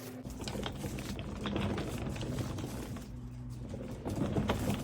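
Hardshell suitcase rolling on its spinner wheels across the floor, a steady low rumble with small clicks and rattles.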